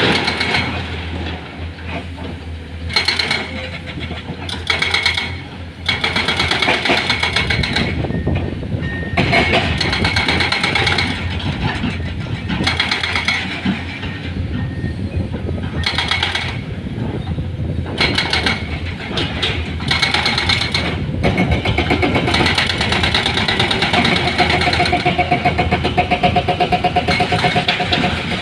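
Heavy diesel engines of an excavator and dump truck running steadily. High, pitched tones break in briefly every couple of seconds, with one longer held tone near the end.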